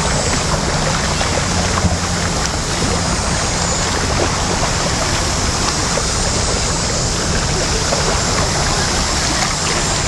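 Steady rush of river water flowing over a shallow submerged stone walkway.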